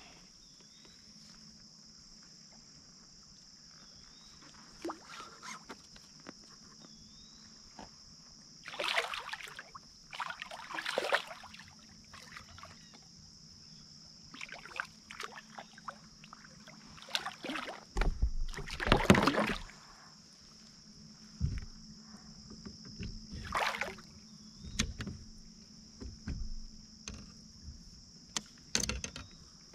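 Water splashing in irregular bursts, the loudest about 18 to 19 seconds in, as a hooked fish is fought. A steady high insect drone runs underneath.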